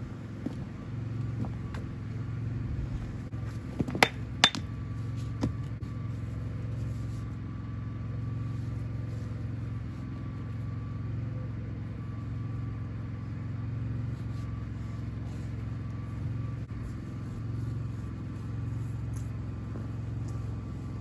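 A steady low mechanical hum, like an engine or machine running, with two sharp knocks about four seconds in, half a second apart.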